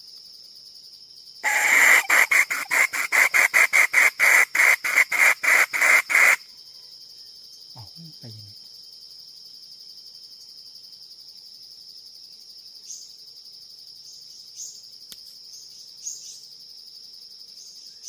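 Female jungle fowl's loud cackling call: a rapid run of about four sharp notes a second for nearly five seconds, then it stops. A steady high insect drone runs underneath.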